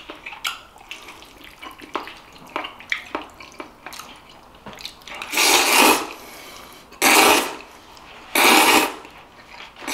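A person slurping chewy jjolmyeon noodles. There are three loud slurps in the second half, each under a second long, and light clicks of chopsticks and bowl come before them.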